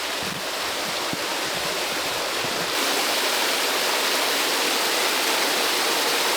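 Stream rushing over small waterfalls in a rocky gorge: a steady rush of water that turns louder and brighter a little under three seconds in.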